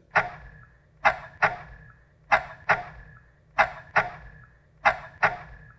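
Gyuto chef's knife chopping on a wooden cutting board: sharp knocks of the blade striking the board, mostly in pairs about every 1.3 seconds, nine strikes in all.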